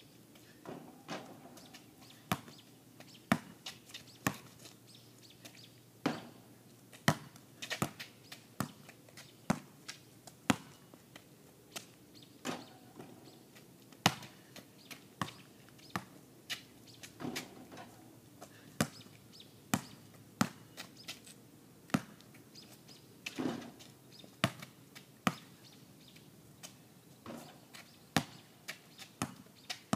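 Basketball bouncing on an outdoor asphalt court: many sharp, irregular bounces, mostly under a second apart.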